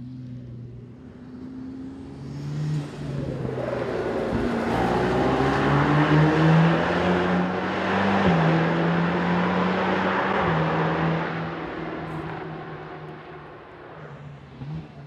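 Mercedes-AMG GT Black Series twin-turbo V8 with a flat-plane crankshaft, engine and exhaust, as the car drives past on a race track: it grows louder, pulls hard with its note rising, steps down in pitch once about eight seconds in, then fades away.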